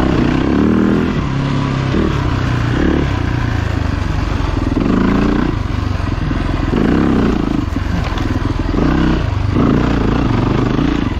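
Off-road motorcycle engine revving up and down over and over as the rider goes on and off the throttle, its pitch climbing and dropping about every two seconds.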